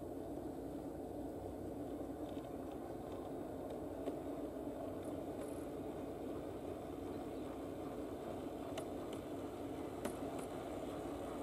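Bachmann G scale Peter Witt streetcar running along the garden track toward the microphone, a steady motor-and-wheel hum that grows slightly louder, with a few faint clicks near the end.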